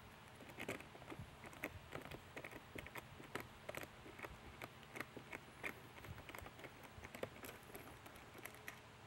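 Hand nut driver turning a small nut inside a plastic siren housing: irregular light clicks and ticks of metal tool on nut and plastic, a few a second, stopping near the end.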